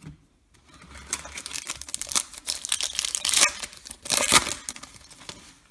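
Foil wrapper of a Topps Chrome trading-card pack crinkling and being torn open by hand: irregular rustling and ripping, with the loudest tears about two seconds in and again about four seconds in.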